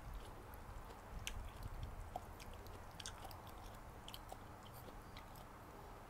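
Close-miked chewing of a mouthful of noodles, with small wet mouth clicks scattered throughout.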